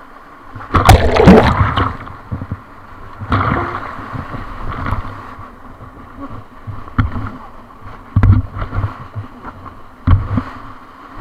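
Whitewater rushing around a raft in a rapid, with sudden loud splashes of water over and against the boat, the biggest about a second in and others every second or two after.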